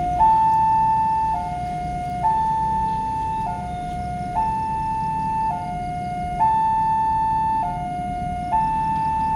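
Railway level crossing warning alarm sounding: an electronic two-tone signal that alternates between a higher and a lower tone, each held about a second, repeating steadily, the warning that a train is approaching and the crossing is closing. A steady low rumble runs underneath.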